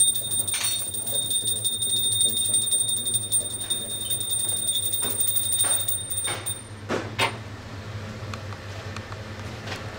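Small hand bell rung continuously during a puja food offering: a quick run of clapper strikes over a steady high ring, stopping about six seconds in. A couple of light knocks follow.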